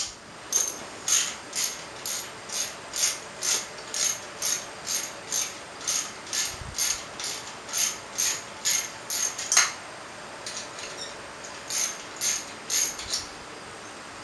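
Hand ratchet wrench clicking at an even pace, about three clicks a second, as a long-threaded engine screw is backed out. The clicking stops about ten seconds in with one louder click, then resumes briefly for a few more clicks.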